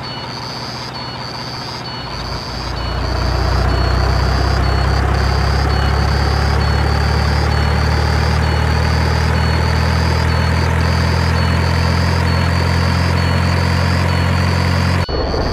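Heavy truck engine sound effect idling: a deep, steady rumble that swells louder about two to three seconds in and cuts off suddenly near the end. A short high chirp repeats about twice a second over it.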